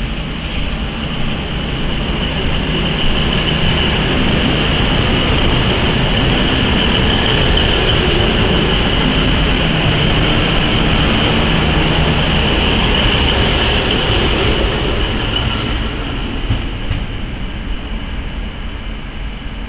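Three diesel locomotives running light, coupled together, engines running steadily. The sound builds over the first few seconds, is loudest through the middle, then eases off toward the end.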